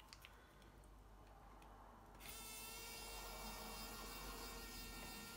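A small electric precision screwdriver whining steadily as it backs out a pentalobe screw from the bottom edge of an iPhone 11. The motor starts about two seconds in, after a few faint ticks.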